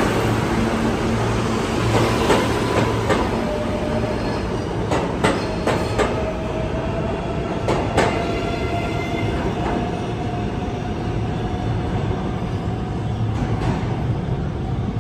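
New York City subway train pulling out of an underground station, its wheels clicking over rail joints through a heavy steady rumble, with a slowly rising whine as it gathers speed.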